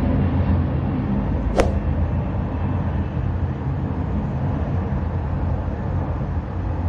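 Lockheed C-130 Hercules military transport plane flying over: a steady low rumble of its four turboprop engines, slowly fading. A single sharp click comes about a second and a half in.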